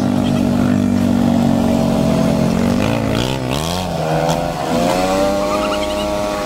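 ATV engine running under way. Its pitch dips and rises about three seconds in, then climbs steadily as the quad speeds up near the end.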